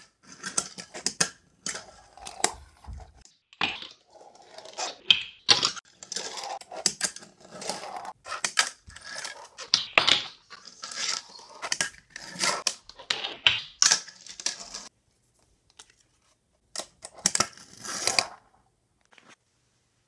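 Fingerboard clattering on a hard tabletop and small ramp: an irregular run of sharp clicks, clacks and short rolling scrapes from the deck and its little wheels as tricks are popped and landed. The clatter stops about 15 seconds in, and after a pause one last short burst follows.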